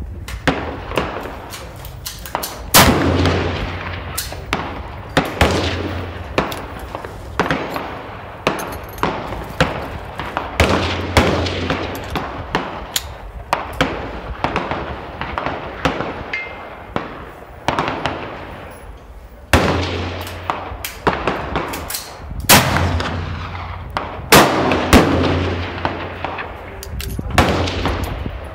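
Irregular gunfire from several guns on a shooting range, many shots throughout with a few much louder, close ones, among them a shot from a Martini-Henry single-shot black-powder rifle.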